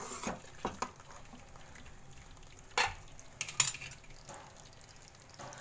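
Metal spoon stirring and scraping thick masala gravy in a steel kadai, with a few sharp scrapes against the pan, the loudest about three seconds in and again half a second later. Under it the gravy sizzles faintly as it cooks, its oil separated.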